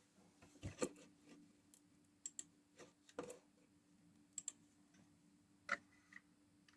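Faint, scattered light clicks and taps over quiet room tone, several coming in quick pairs, as of small tools or parts being handled at a workbench.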